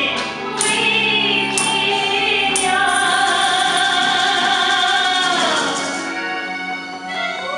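A woman singing long, held notes into a microphone, her pitch sliding down a little before the end. Three ringing strikes, about a second apart, sound over the singing in the first few seconds.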